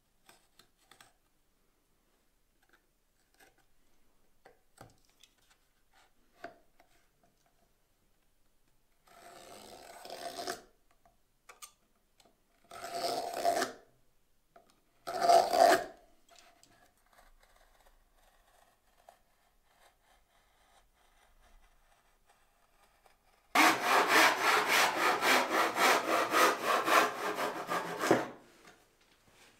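A marking knife scores lines into a wooden board in three short scratching strokes. Then a western handsaw cuts the board in quick, even strokes, the loudest sound here.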